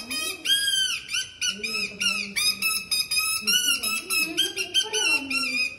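Kathputli puppeteer's mouth reed whistle (boli) giving the marionette its voice: a quick, unbroken run of short, shrill, squeaky notes. A lower human voice is heard beneath it.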